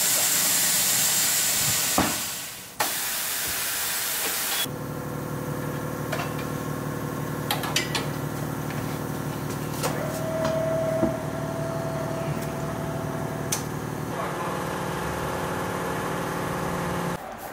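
Tyre-changing machine at work: loud blasts of compressed air hissing for the first few seconds, then the machine's motor running with a steady hum and a few clicks for about twelve seconds.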